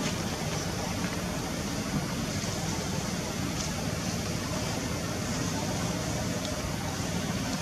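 Steady low rumble with an even hiss above it, unchanging throughout: outdoor background noise with no distinct event.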